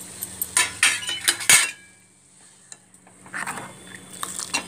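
Metal ladle stirring tomato pulusu in a metal pot, clinking and scraping against the pot, with one loud knock about a second and a half in. After a short lull the clinking and stirring start again.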